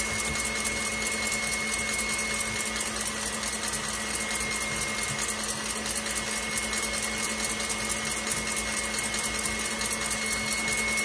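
KitchenAid stand mixer running at a steady whir, beating duck egg whites in its stainless steel bowl; the whites are still on their way to stiff peaks.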